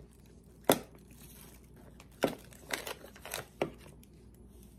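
Plastic spice shaker bottles being set down and shuffled on a table, with a sharp knock about a second in and then a quick run of lighter knocks and clicks. Plastic grocery bags crinkle a little.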